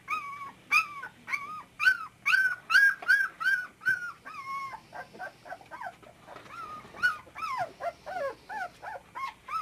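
A litter of 24-day-old collie puppies whimpering and yipping: a quick run of short, high cries, several a second, some falling in pitch. The crying eases off about five seconds in and picks up again near the end.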